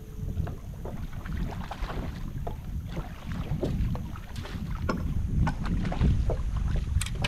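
Wind rumbling on the microphone, with irregular splashing as a hooked bass thrashes at the surface and is scooped into a landing net. The splashes come thicker and louder near the end.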